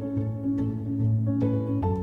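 Background music: light instrumental music with plucked notes over a steady low bass.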